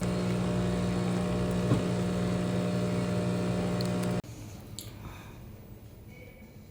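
A steady mechanical hum made of several fixed pitched tones, which cuts off abruptly about four seconds in, leaving faint room tone.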